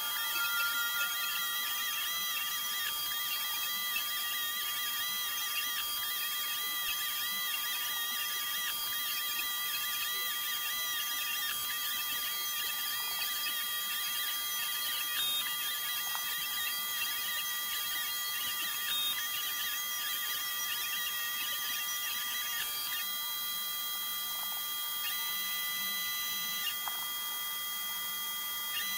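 Snapmaker's stepper motors whining as the blade-holder module cuts puzzle shapes into foam board. Several steady high tones sit under a pitch that warbles up and down as the head moves, and the sound settles to steadier tones in the last few seconds.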